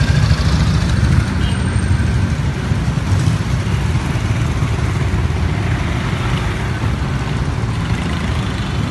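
Several motorcycles riding slowly past close by, one after another, their engines running steadily at low revs.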